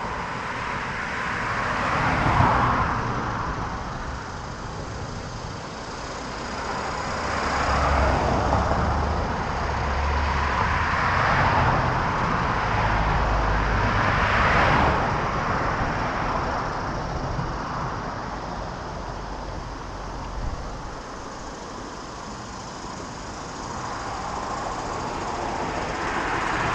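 Road traffic: several cars passing one after another, each swelling and fading, over a low rumble.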